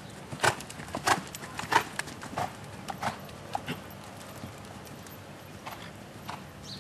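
Hoofbeats of a ridden horse on dirt arena footing, a regular beat of sharp strikes that grows fainter from about four seconds in as the horse moves off.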